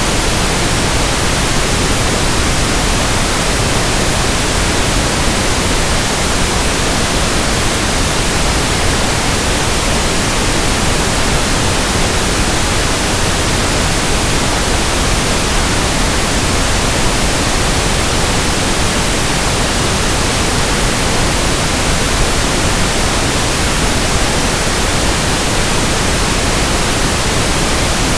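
Steady synthetic pink noise from an audio test track, an even hiss across the whole range with no change in level.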